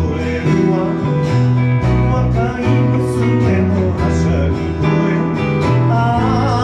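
A small live band playing a slow song: acoustic guitar and piano over a moving electric bass line.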